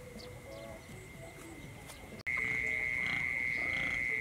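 Rural field ambience: a steady high-pitched insect drone with scattered short animal calls. The sound drops out for an instant about two seconds in, then comes back with the drone much louder.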